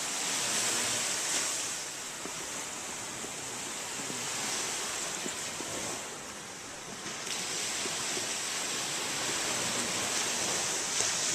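Ocean surf washing onto a sandy beach, a steady rush of waves that swells and eases, dropping back briefly about two-thirds of the way through.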